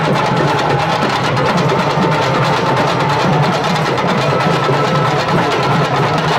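Loud, fast, continuous drumming music, with a faint steady tone above the beats.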